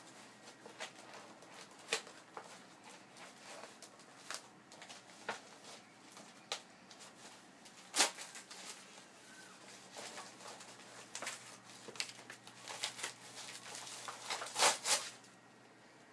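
A thick paperback book being torn apart by hand: irregular sharp rips and crackles of paper, with a strong rip about halfway and a quick cluster of the loudest rips near the end.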